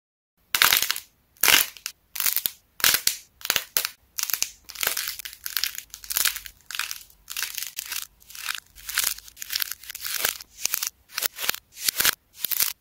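The hardened glossy shell of a lightweight clay fried-egg model cracking and crunching as fingers squeeze and bend it, in a string of short crackling bursts about every half second.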